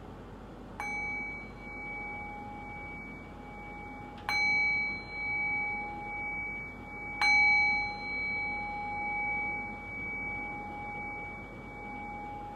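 A meditation bell struck three times, a few seconds apart, each strike louder than the last and left to ring on with a clear two-tone wavering hum. The bells mark the close of the meditation practice.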